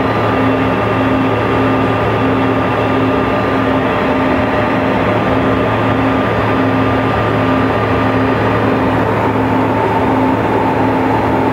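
Steady jet cabin noise inside a Bombardier CRJ-200 in flight, from its rear-mounted General Electric CF34 turbofans and the airflow over the fuselage. A low hum under it pulses evenly about twice a second.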